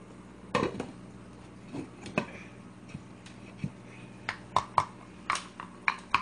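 Clinks and knocks of a glass lid being handled on a stainless steel stockpot with an oven mitt, a few scattered at first, then a quick run of sharp clicks in the second half.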